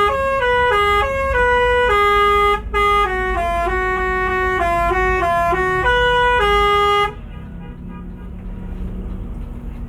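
Bus 'telolet' musical air horn playing a quick tune of stepped notes. It cuts off about seven seconds in, leaving the low rumble of the bus running.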